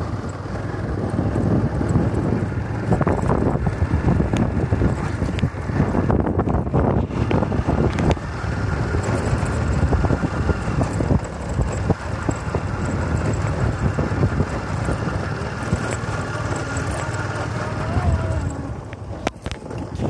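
Motorcycle riding along a rough dirt track: wind buffeting the microphone over the running engine, with occasional knocks from bumps in the track.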